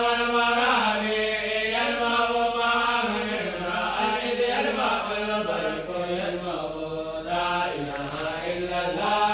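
Group of young men's voices chanting dhikr together in unison, in drawn-out notes that shift in pitch every second or so. A brief noisy burst comes near the end.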